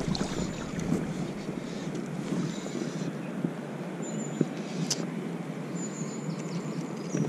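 Wind buffeting the microphone as a steady, gusting low rumble, with a few faint high chirps and one sharp click about five seconds in.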